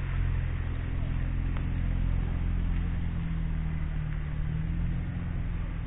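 Small motorcycle engine running steadily at low revs while riding slowly, a low drone with an even hiss above it.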